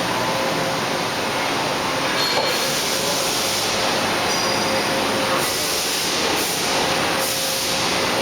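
Fadal VMC5020A CNC vertical machining center running, with a steady hum and hiss. The hiss grows louder about two and a half seconds in and comes in several surges near the end.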